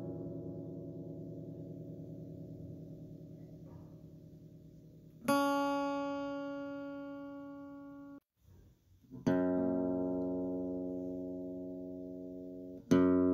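Background music: slow plucked guitar-like chords, each struck and left to ring out and fade for several seconds. There is a brief break a little past the middle.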